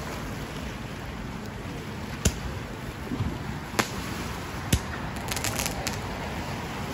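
Fireworks going off: three separate sharp bangs a second or so apart, then a quick run of crackling pops near the end, over a steady background noise.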